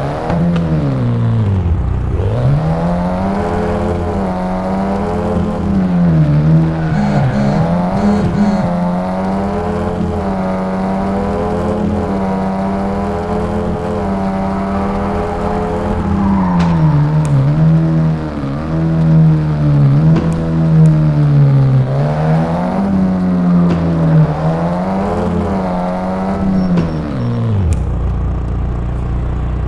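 An engine revving, its pitch rising and falling again and again, then winding down and stopping near the end.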